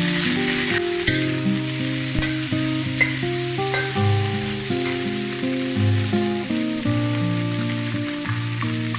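Water spinach stems sizzling in hot oil in a steel wok as they are stir-fried and tossed with a metal spatula. Background music with sustained notes plays over the frying.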